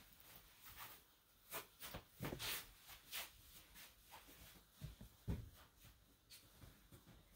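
Soft shuffling steps of tabi-socked feet sliding over tatami mats, with the rustle of a kimono. About five seconds in come two soft low thumps.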